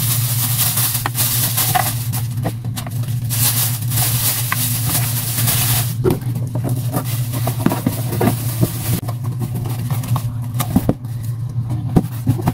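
Clear plastic bag crinkling and rustling as it is handled for about the first six seconds, then a cardboard box being handled with scattered taps and knocks. A steady low hum runs underneath.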